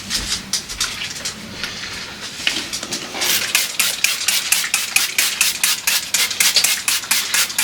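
Dishes and kitchen items clinking and clattering as they are handled. About halfway through this turns into a quick, even run of sharp clicks, about five a second.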